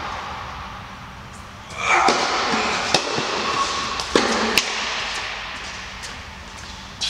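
Tennis ball struck by rackets and bouncing on an indoor hard court during a rally: a few sharp knocks, each echoing in the large hall.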